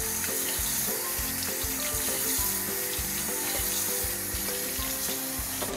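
Cold tap water running onto boiled noodles in a stainless-steel colander in a sink, a steady splashing hiss that cuts off suddenly near the end. Background music with a steady beat plays underneath.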